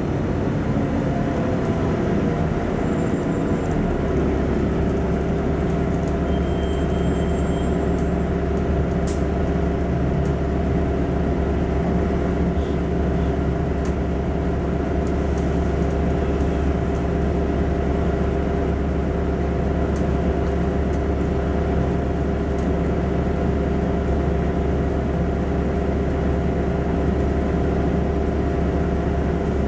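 LiAZ-5292.65 city bus under way, its engine and drivetrain making a steady drone. The engine note shifts in the first few seconds, then holds even.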